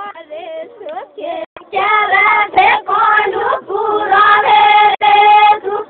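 A group of girls and young women singing together, starting about two seconds in after a moment of brief voices, with held notes toward the end.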